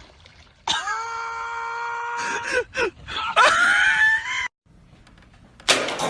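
A person screaming: one long, steady, high scream, then after a short break a second scream that rises in pitch and cuts off suddenly. A short noisy burst follows near the end.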